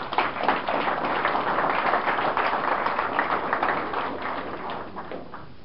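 Audience applauding, many hands clapping together. The applause swells quickly, holds, then dies away near the end.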